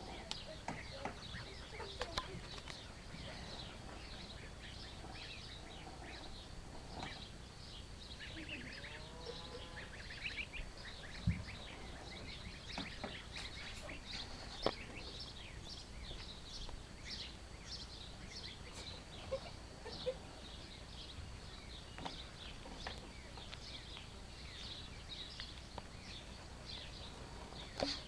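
Ducklings peeping: many short, high-pitched chirps repeating throughout, with a few sharp knocks.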